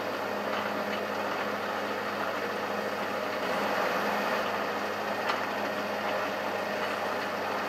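Metal lathe running steadily at slow speed, turning a cast iron driving wheel clamped off-centre and out of balance, while a centre drill in the tailstock chuck is fed slowly into it: a steady motor and drive hum with a faint tick a little past five seconds in.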